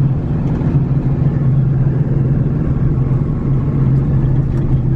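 Pickup truck cab noise while driving: a steady low engine drone with road and tyre noise underneath.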